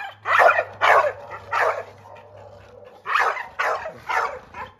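Dog barking, about six short loud barks in two groups of three with a pause between them.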